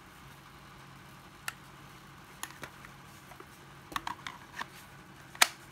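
Scattered sharp clicks and knocks of cordless drills being handled and set down on a hard surface, a cluster about four seconds in and the loudest knock near the end, over a faint steady hum.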